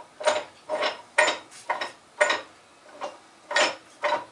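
A series of about nine sharp metallic clacks, roughly every half second and unevenly spaced, from the cast-iron parts of an antique GM Yost pattern maker's vise being worked by hand.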